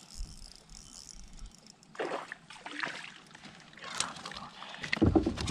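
Water splashing and trickling around a fishing kayak, with several knocks and rustles as the angler moves and handles his gear, a sharp click about four seconds in.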